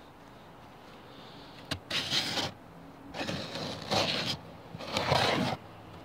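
The cork-borer awl of a cheap multitool being twisted and ground into hard seasoned wood: a small click, then four short scraping grinds of about half a second each.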